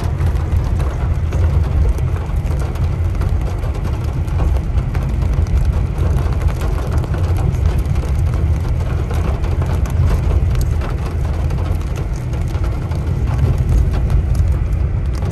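Steady low engine and road rumble heard from inside a car driving on a wet road, with many faint scattered ticks over it.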